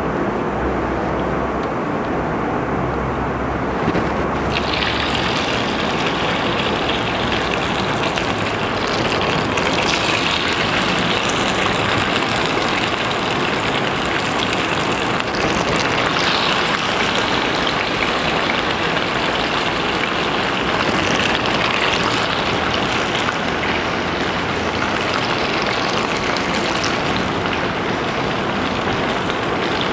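Pieces of stuffed tofu and bitter gourd sizzling as they shallow-fry in a little oil in a nonstick frying pan. The sizzle grows brighter about four seconds in as more pieces go into the hot oil.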